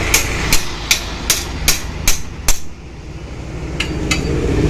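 Repeated hammer blows on metal, driving out a seized piston pin. About seven evenly paced strikes come at roughly two and a half a second, then a short pause, then two quick strikes near the end.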